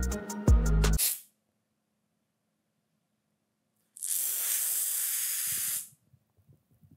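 Background music stops about a second in; after a pause, a steady hiss like a spray or escaping steam runs for about two seconds and cuts off.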